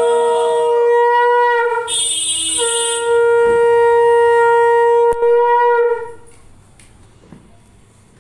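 Conch shell (shankha) blown in long, steady, single-pitched blasts. One blast ends under two seconds in, and a second one runs about three seconds before stopping about six seconds in.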